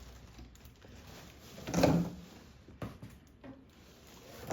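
Handling noise from bicycle parts and their packaging being put aside: a dull thump about two seconds in, then a few lighter knocks and clicks.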